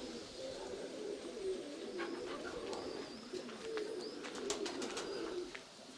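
Domestic pigeons cooing continuously in a low, wavering murmur, with a brief run of sharp clicks a little past the middle.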